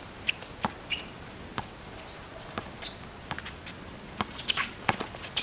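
A basketball being dribbled on a concrete court, with irregular sharp bounces and scuffing footsteps. Some short high squeaks or chirps are mixed in.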